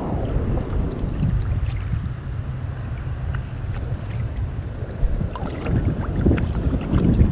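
Lake water washing and sloshing around a camera at the surface, heard as a low, muffled wash with wind on the microphone. Small splashes and drips tick here and there, and the water swells up louder near the end.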